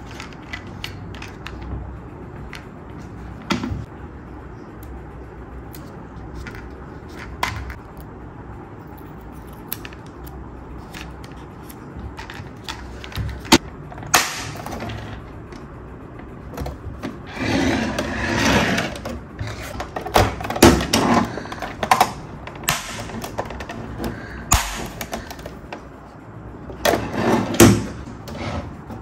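Hard plastic toy vehicle being handled: scattered clicks and knocks as its flaps and hatches are opened and folded out, with denser bursts of plastic rattling in the second half and again near the end.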